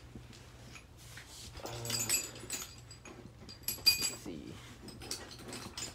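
Whining, gliding vocal sounds from a pet animal, twice, with a sharp clink of metal hand tools about four seconds in.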